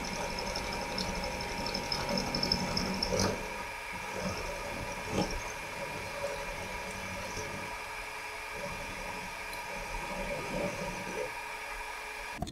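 Milling machine running, its end mill cutting an aluminium bar clamped in a vise: a steady motor whine with a rougher cutting noise that comes and goes as the cutter works back and forth.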